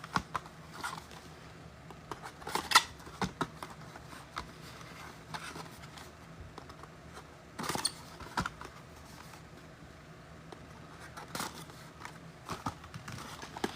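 Trading card hanger boxes being opened by hand: scattered short clicks and rustles of cardboard and wrapping, with stretches of quiet between them.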